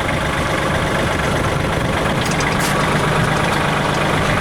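Kubota L3800 tractor's three-cylinder diesel engine running steadily at an even speed while it powers the backhoe's hydraulics.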